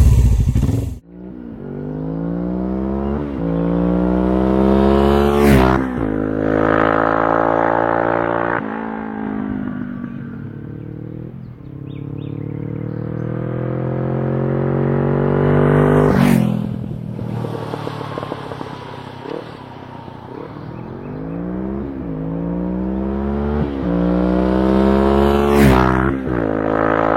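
Suzuki GS500's air-cooled parallel-twin engine under way, its pitch climbing for a few seconds and dropping again at each gear change, over and over. Three brief loud peaks, about ten seconds apart, stand out.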